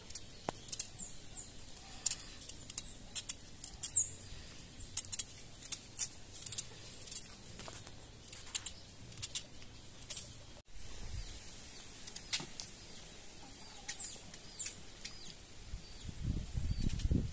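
Small birds chirping in short high notes that drop in pitch, repeated throughout, over faint clicks and scrapes of a knife peeling and cutting vegetables. A low rumble comes in near the end.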